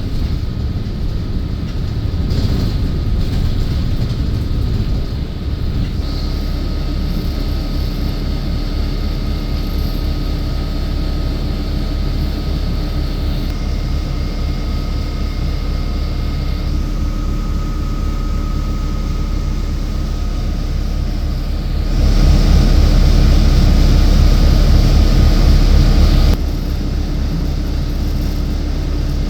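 Interior of a city bus in motion: a steady low engine and road rumble with a faint steady whine. About three-quarters of the way through it grows louder for about four seconds, then drops back sharply.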